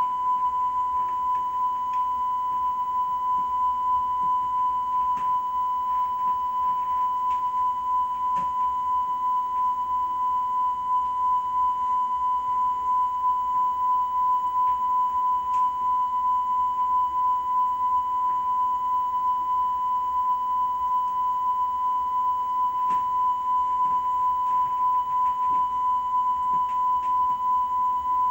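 A steady, unbroken high-pitched tone from a television's speaker during VHS playback that shows only a blank white screen, with a few faint ticks.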